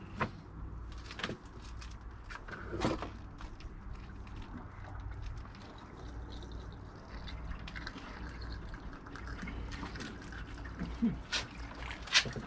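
Descaling vinegar draining out of a tankless water heater's drain valve as a steady trickle of liquid, with several sharp clicks and knocks of handling, the loudest near the end.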